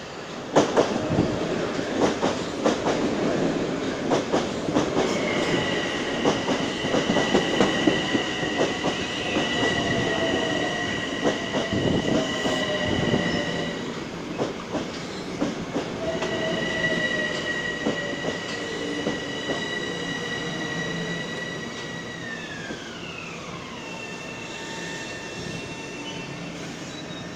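Metro-North electric commuter train pulling into a station: wheels clacking over rail joints, with a high steady whine that glides down in pitch about 22 seconds in as the train slows to a stop.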